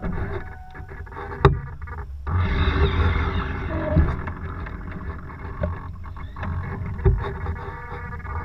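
Sailboat under way: water rushing along the hull and wind buffeting the microphone. A sharp knock comes about one and a half seconds in and another about seven seconds in.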